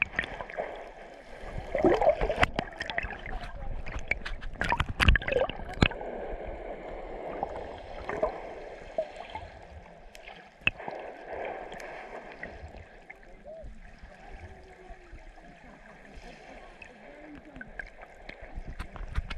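Shallow seawater sloshing and gurgling around an underwater camera held just below the surface, with sharp knocks and clicks on the camera housing, loudest and busiest about two to six seconds in.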